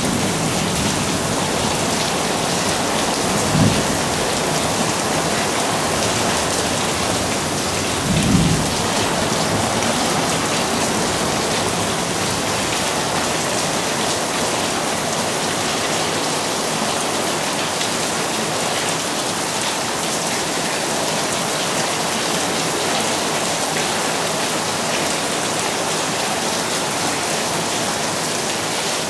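Heavy thunderstorm rain pouring steadily onto a concrete patio and swimming pool. A low thunder rumble fades out in the first moment, and there are two brief low thumps about three and a half and eight seconds in.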